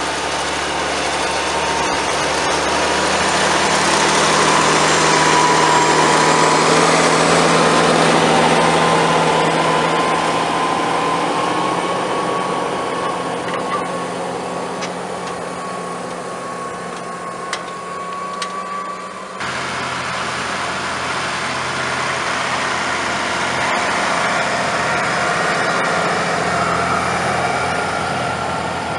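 Tractor engine working under load while pulling a reversible mounted plough through the soil, with a whine that climbs slowly in pitch over the first two-thirds. The sound changes abruptly about two-thirds of the way through.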